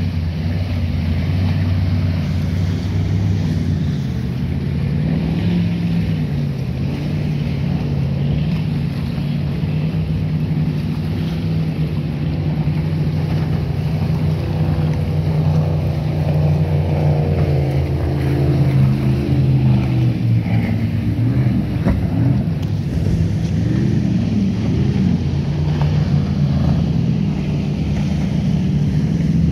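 Motorboat engines droning steadily over the wash of choppy, wake-churned water and wind on the microphone. About halfway through, a passing boat's engine slides down in pitch as it goes by.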